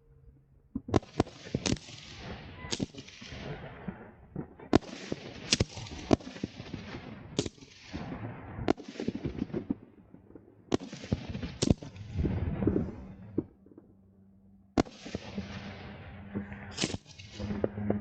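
Fireworks going off in quick succession: sharp bangs of bursting shells, several every few seconds, each followed by crackling that trails off.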